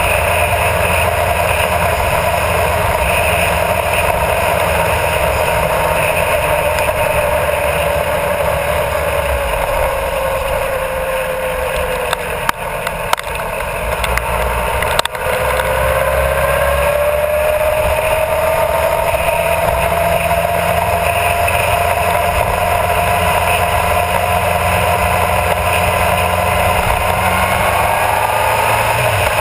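Honda CBR1000RR Fireblade's inline-four engine running at speed with steady wind and road noise, heard from a camera mounted low at the front wheel. Its pitch eases down as the bike slows into a bend, dips briefly with a couple of sharp clicks about halfway, then climbs steadily as it accelerates back out.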